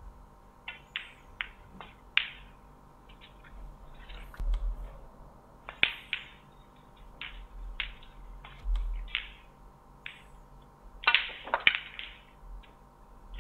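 Snooker balls clicking: the cue striking the cue ball and hard resin balls knocking into each other, a string of short sharp clicks at uneven intervals, with a cluster of louder ones near the end.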